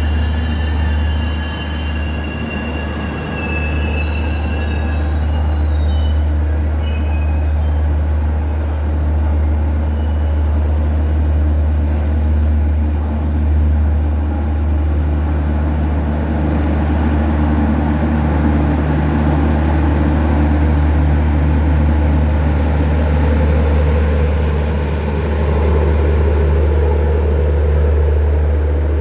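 Passenger train rolling along the rails with a steady rumble. High-pitched wheel squeal in the first few seconds fades away.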